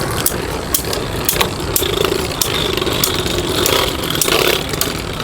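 Two Vise Leopard Beyblade Burst spinning tops whirring as they spin after launch, with sharp plastic clacks as they hit each other again and again.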